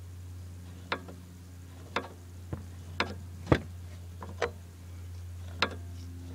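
Tongue-and-groove pliers clicking on the garden-hose inlet fitting as it is turned tight into a pressure washer pump: about eight sharp clicks at uneven intervals of roughly a second, the loudest a little past the middle, over a steady low hum.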